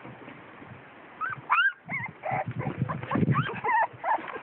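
Dog whimpering in short, high-pitched whines and yelps that start about a second in, over scuffling and dull thumps.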